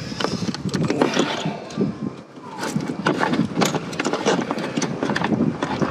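Socket ratchet clicking in quick strokes as a spark plug is unscrewed from the Corsa's 1.4 litre engine, the clicks coming thick and fast from about halfway in.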